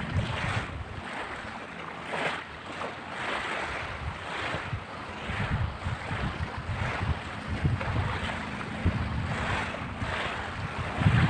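Small waves washing on a pebble shore, about one wash a second, with wind gusting on the microphone.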